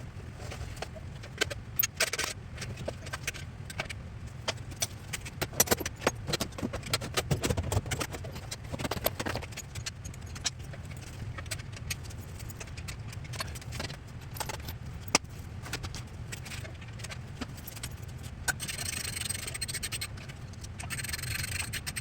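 Irregular clinking, scraping and rattling of metal parts and hand tools as an air box is fitted onto a 1977 Honda GL1000 motorcycle, over a low steady hum.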